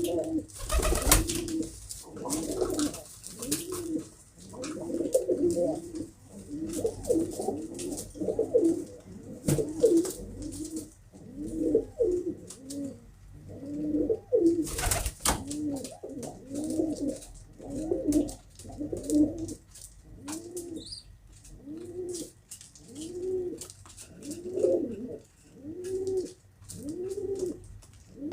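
Domestic pigeons cooing over and over, one rounded low coo after another about once a second, at times overlapping. A couple of short rustling bursts stand out, about a second in and about halfway through.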